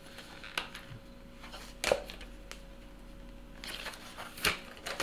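Hard-to-open packaging of lead jig heads being pried and torn at by hand: a few sharp cracks and snaps, the loudest about two seconds in, with a short crinkling rustle near the end.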